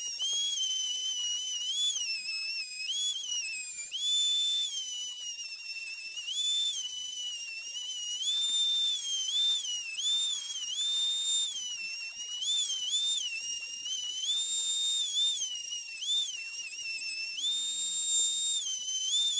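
A high-speed rotary tool's cut-off wheel whines as it cuts into a rifle's metal muzzle brake. The high whine sags in pitch each time the wheel is pressed into the metal and rises again as the pressure eases, over and over.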